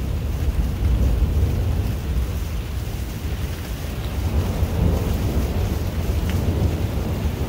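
A steady low rumble with wind buffeting the microphone.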